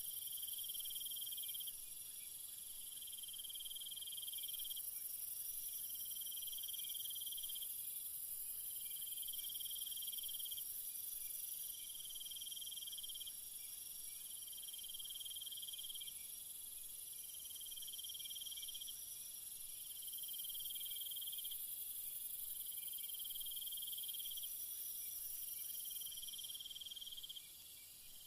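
Chorus of night insects chirping: a high trill swells for about two seconds, then fades, repeating roughly every three seconds over a steady high hiss of further insect noise.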